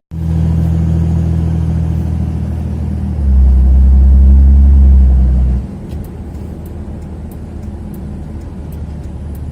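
5.9 Cummins diesel pickup driving, heard from inside the cab: a steady low engine and road drone. It grows louder for a couple of seconds in the middle, then drops off to a quieter, even run.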